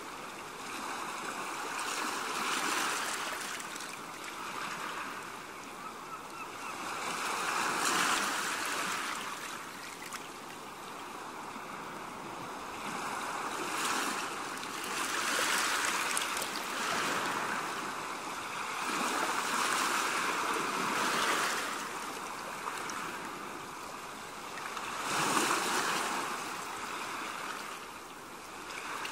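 Sea waves washing onto a beach, the rush of water swelling and falling back every few seconds.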